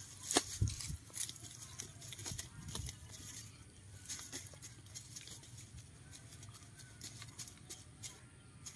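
Wire-mesh cage trap rattling and clicking as it is handled in dry grass, with a bird caught inside. A few sharp clicks come in the first second, then lighter irregular ticks and rustling.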